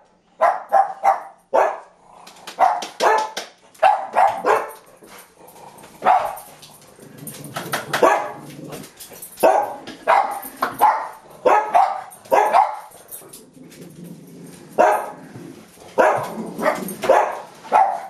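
A pug barking over and over, sharp barks coming in quick runs of two to four with short pauses between runs.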